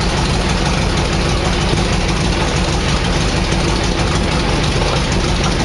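M36 tank destroyer's engine idling steadily with a low, even rumble.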